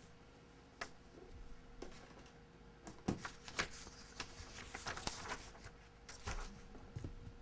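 Sheets of paper being handled and leafed through close to a desk microphone: rustling and crinkling with scattered small knocks, busiest and loudest in the middle few seconds.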